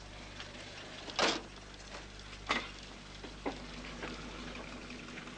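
Three short knocks or clatters, the loudest about a second in, over a faint steady low hum.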